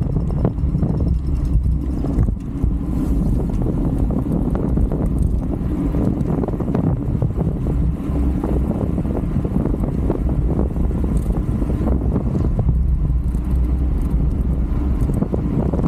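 Wind buffeting a bike-mounted camera's microphone at racing speed: a loud, steady, fluttering rumble, mixed with road noise from the bicycle.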